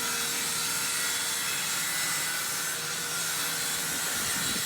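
Electric woodworking power tool running steadily with an even hiss, cutting or working timber.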